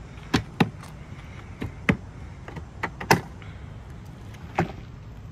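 Plastic latches and lid of a DeWalt ToughSystem rolling tool box being unsnapped and opened: a series of sharp, separate clacks, about five in all, the loudest about three seconds in.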